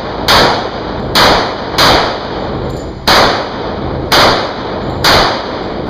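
Six pistol shots fired during an IDPA course of fire, each ringing off the walls of an indoor range. The first three come in quick succession, then after a short pause three more follow about a second apart.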